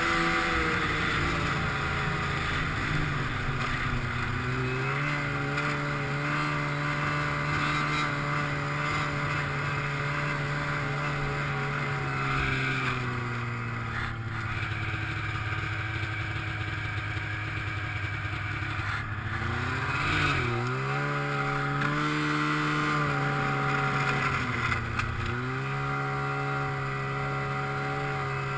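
Snowmobile engine running while riding, over a steady hiss. Its pitch dips and climbs back with the throttle about three seconds in, and twice more in the second half.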